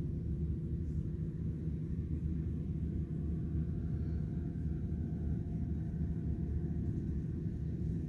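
Combine harvester cutting oilseed rape, heard at a distance as a low steady rumble, with a faint whine over it from about the middle.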